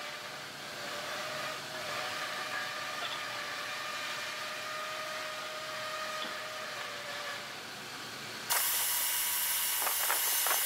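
A steady hiss with a few faint held tones, then about eight and a half seconds in a sudden, much louder spray hiss starts and keeps going: aerosol spray paint being sprayed to coat the crane's crank handle black.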